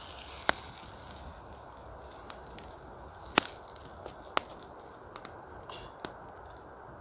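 Wood campfire crackling, with a few sharp pops, the loudest about half a second, three and a half and four and a half seconds in, over a low steady hiss.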